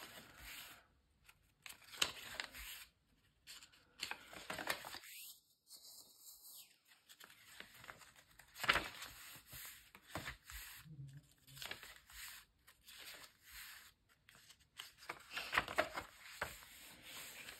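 Paper pages of a freshly hand-stitched small notebook being turned one after another: faint, irregular rustles and swishes of paper.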